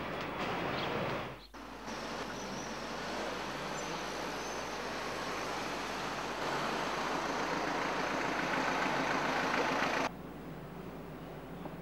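City street traffic noise: a steady rush of cars driving past, briefly dipping about a second and a half in. Near the end it cuts off suddenly to a quieter room tone.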